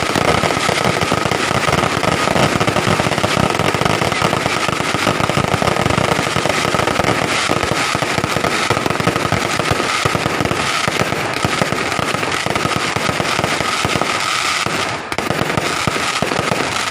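Fireworks and firecrackers going off in a dense, continuous rapid crackle of many small bangs, with a faint steady high tone running underneath.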